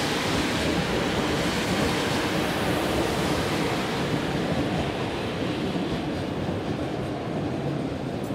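Train running on the rails, a steady rumble and rail noise whose treble eases off in the second half.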